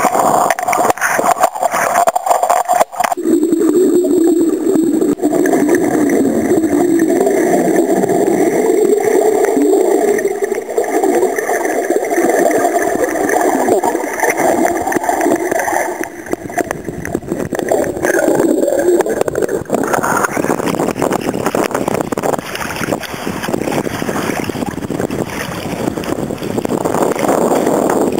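Seawater gurgling and sloshing around a camera held at and just under the surface, muffled and wavering, turning to a broader, hissier wash about two-thirds of the way through.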